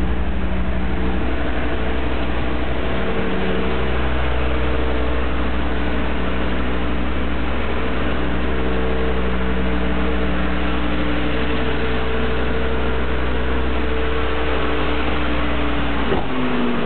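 Volvo V70's 2.5-litre five-cylinder petrol engine idling steadily, with an even low hum. The hum changes slightly near the end.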